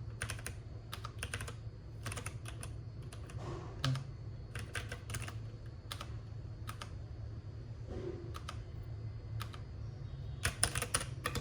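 Keys of a Keychron K8 keyboard being pressed in irregular runs of clicks with short pauses between them, over a low steady hum.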